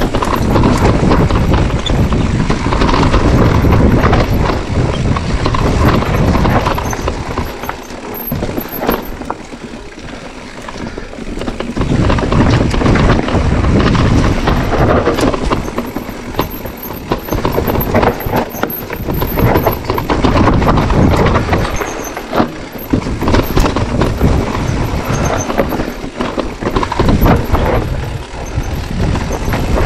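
Electric mountain bike descending a rough, rocky dirt trail: tyres rolling and knocking over stones and ruts, the bike rattling over the bumps, and wind buffeting the microphone. It eases off briefly about a third of the way in and again about three quarters through.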